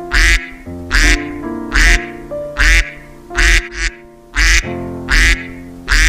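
Duck quacking over and over at an even pace, a little more than one quack a second, over background music with sustained notes.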